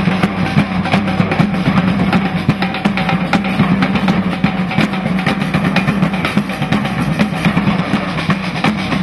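Music driven by drums, with rapid, busy hits over a steady low tone.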